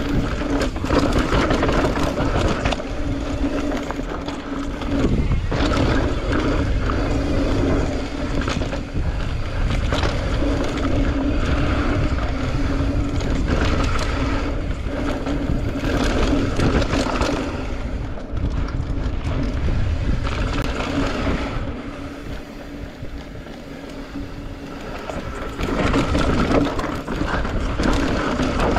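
Mountain bike riding fast down a dusty dirt trail: the tyres and frame rattle over the rough ground, and wind buffets the camera microphone, with a steady hum underneath. The noise eases for a few seconds about three quarters of the way through, then picks up again.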